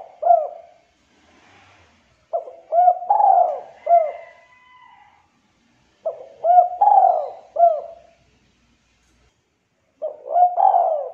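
Spotted dove (tekukur) cooing its 'culhu kuk' song: a multi-note phrase repeated about every four seconds, each phrase a short opening note followed by a few arched coos with the middle one loudest.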